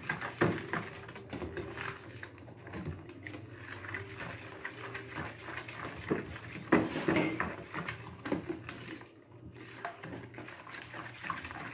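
Wooden spoon stirring runny cake batter in a plastic bowl: repeated soft scrapes and knocks against the bowl, a few louder knocks about seven seconds in.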